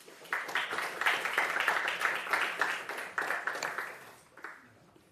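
Audience applauding: many hands clapping together, starting just after the beginning and dying away about four seconds in.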